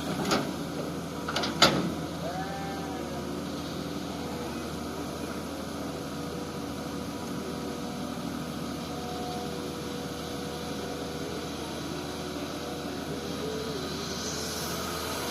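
Komatsu PC-200 hydraulic excavator's diesel engine running steadily under working load. Two sharp metallic knocks come within the first two seconds, the second the louder.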